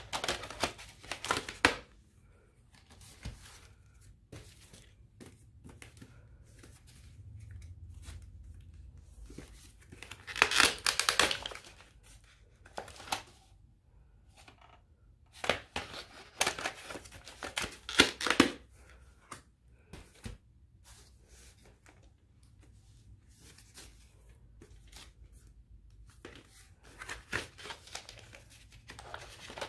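Hard plastic handling noise: VHS cassettes being lifted out of and set back into plastic clamshell cases. It comes in four bursts of clicks, scrapes and rattles, with quiet gaps between them.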